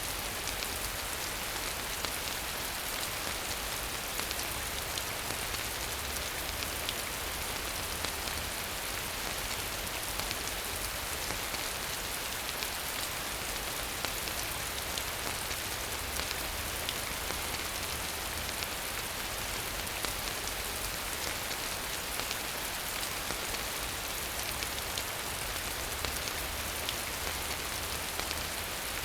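Steady rain falling, a constant hiss with the patter of scattered individual drops, even throughout.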